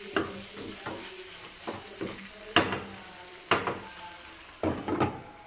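Chicken and pork pieces sizzling in a nonstick frying pan while a wooden spatula stirs and turns them. The spatula knocks and scrapes against the pan several times over a steady frying hiss.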